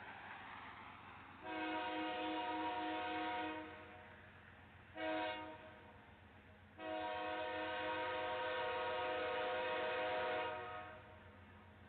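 Locomotive air horn sounding a chord of several notes in three blasts: a long one, a short one, then a long one. A steady train rumble runs underneath.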